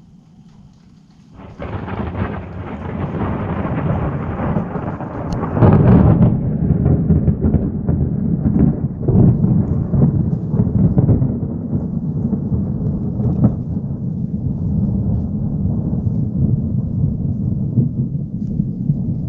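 Thunder: a sudden crack of thunder about a second and a half in, growing to its loudest about six seconds in, then a long rolling rumble that slowly fades.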